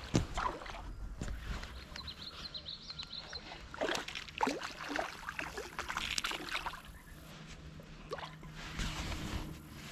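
Irregular water splashes and sloshing from a hooked smallmouth bass being fought in shallow river water, over a low rumble.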